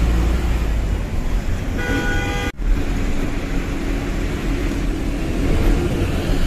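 Tata 1512 truck's diesel engine running under way with road noise heard from the cab. A vehicle horn toots briefly about two seconds in. The sound drops out for an instant just after.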